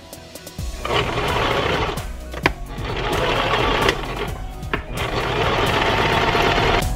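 Single-needle domestic sewing machine stitching a seam through doubled-over fabric. It runs in three spells with short stops between, starting about a second in.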